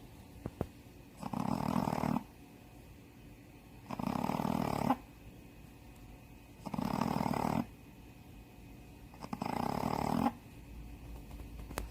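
A Shih Tzu, a flat-faced breed whose nostrils have been surgically widened, snoring in its sleep. There are four snores, each about a second long and spaced roughly three seconds apart, with quiet breathing between them.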